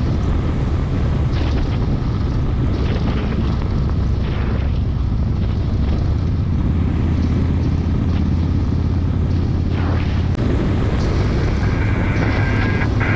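Onboard sound of a Harley-Davidson bagger motorcycle cruising: its V-twin engine runs as a steady low rumble under heavy wind buffeting on the microphone.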